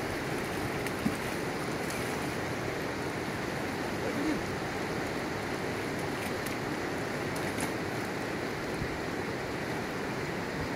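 Steady rush of flowing river water, with a single light knock about a second in.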